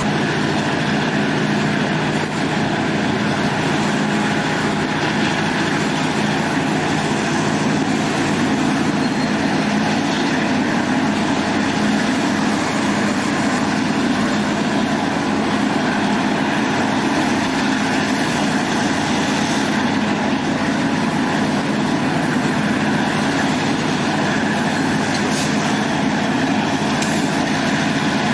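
Diesel-hauled passenger train heard from a car's open end platform: the locomotive's diesel engine drones steadily under the rumble of the car's wheels on the track.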